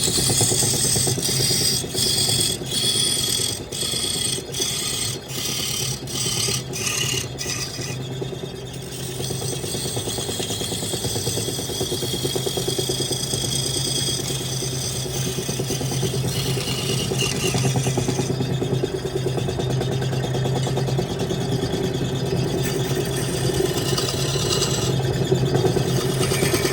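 Electric wood lathe running with a steady motor hum while a turning tool cuts the spinning wood. For the first eight seconds the cutting noise comes in short strokes about twice a second, then it goes on as a lighter, steadier hiss.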